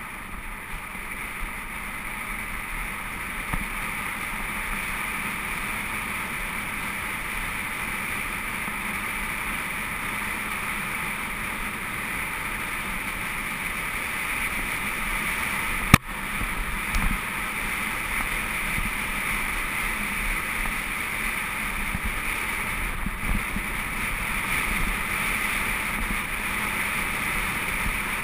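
Steady rush of wind on the camera's microphone, mixed with mountain-bike tyres rolling over gravel on a fast ride. One sharp knock stands out about halfway through.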